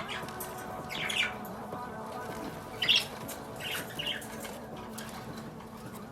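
Budgerigars giving a few short squawking calls, around one, three and four seconds in, over background music.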